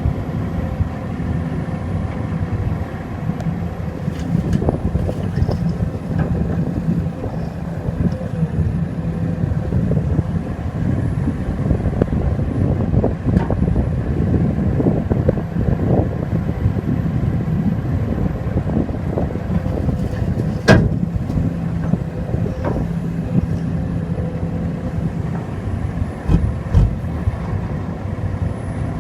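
Diesel engines of a Sumitomo SH210F excavator and a ten-wheel dump truck running steadily while soil is loaded. Scattered knocks run through the drone, and there is one sharp crack about two-thirds of the way through.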